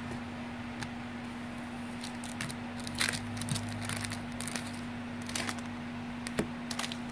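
Glossy Stadium Club baseball cards being handled and flipped through: scattered faint slides and clicks of card stock, heaviest in the middle, over a steady low hum.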